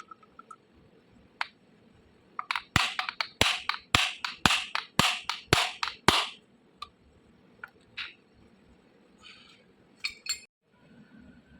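Tapping on electric motor parts during bearing installation or reassembly: a quick run of about ten sharp knocks, a little under three a second, then a few scattered clicks near the end.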